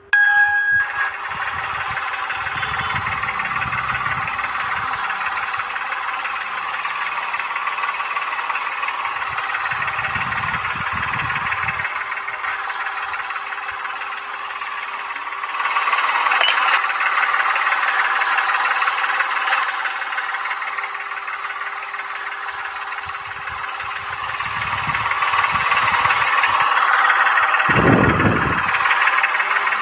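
A small motor running steadily with a grinding whir and a constant hum. It grows louder about halfway through and again near the end, with a dull low thump near the end.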